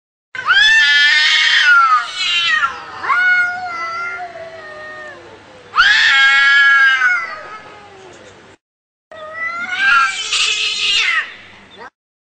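Angry cat caterwauling: long, loud, wavering yowls that rise and fall in pitch, with the strongest wails near the start and about six seconds in, and a third after a short break of dead silence.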